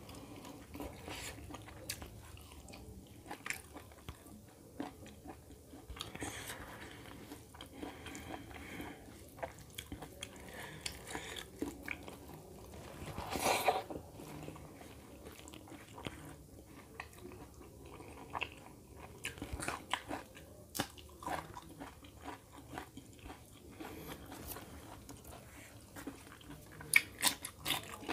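Close-up eating sounds of a person chewing and biting chicken curry and rice eaten by hand, with many short mouth and finger clicks. There is one louder, longer sound about halfway through and a few sharper clicks near the end.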